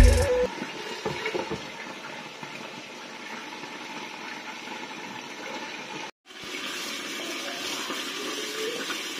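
Steady sizzling hiss of chicken legs frying in oil under a glass lid. It breaks off for a moment about six seconds in, then sliced onions sizzle in a frying pan.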